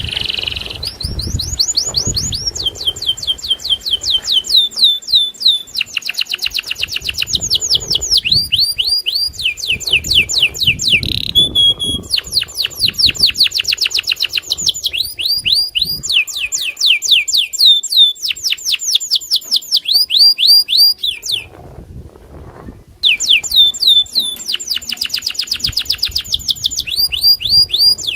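Domestic canary (a long-singing 'loper' canary) singing loudly in long, fast trills of repeated falling notes, switching from one trill to the next, with one short break about three quarters of the way through.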